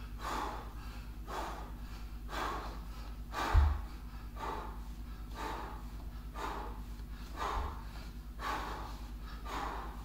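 A man breathing hard during fast bodyweight squats: quick, even breaths about two a second, in time with the reps. Two low thumps, about four seconds apart.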